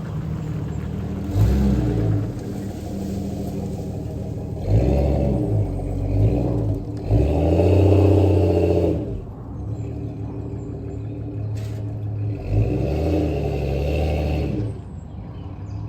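A vehicle engine running and revving up and back down several times, the loudest and longest rev about halfway through.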